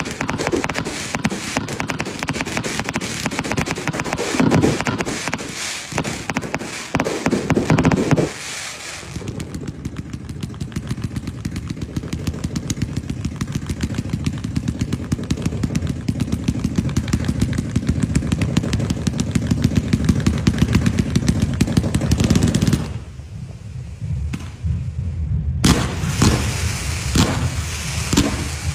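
Fireworks going off in a dense volley of bangs and crackling. About eight seconds in, this gives way to a long, rapid run of duller pops. Near the end it drops away for a couple of seconds, then separate sharp bangs start again as a cake fires comets.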